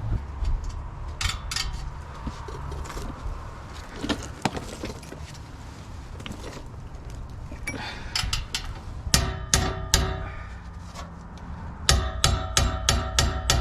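Metal tools knocking, then a hammer striking metal, each blow ringing: a few scattered knocks at first, then from about nine seconds in a steady run of about three ringing blows a second, as tight exhaust bolts on a Ford F-150 are worked loose.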